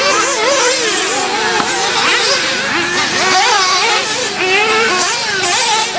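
Several 1/8-scale off-road RC buggies racing, their small motors buzzing with a pitch that rises and falls constantly as they accelerate and slow through the corners.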